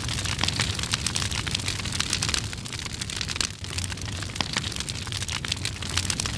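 Wildfire burning through trees: a dense, continuous crackle of pops over a steady low rumble.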